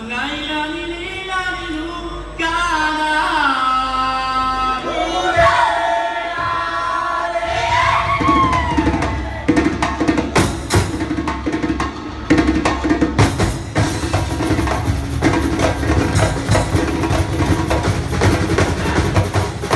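Live percussion ensemble: a solo melodic line with sliding pitch gives way, about seven and a half seconds in, to a full band of drums playing fast, dense strokes.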